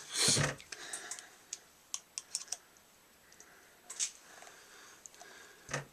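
Hard parts being handled: a thump near the start, then a scattered run of sharp light clicks and knocks about one to two and a half seconds in, and another around four seconds.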